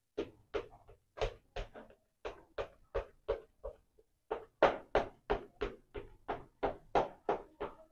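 A steel fork pricking pizza dough in a metal pizza pan, its tines clicking against the pan in quick repeated strokes, about three a second, with a short pause about four seconds in.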